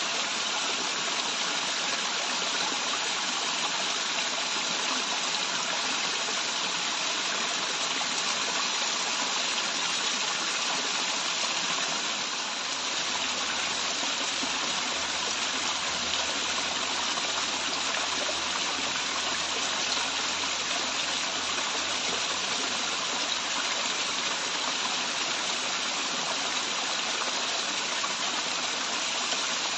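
Waterfall: running water rushing and splashing in a steady, unbroken roar of noise.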